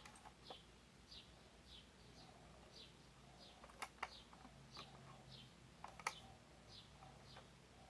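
Near-quiet background with a small bird chirping a short falling note about twice a second, and a few sharp clicks, the loudest about four and six seconds in.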